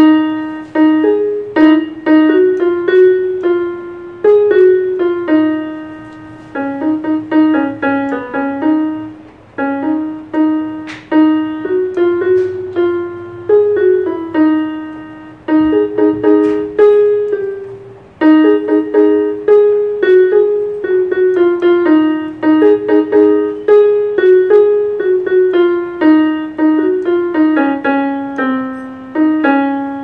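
Casio CTK-3500 61-key portable keyboard playing a single-note melody in a piano tone through its built-in speakers. Each note is struck and fades, in short phrases with brief gaps.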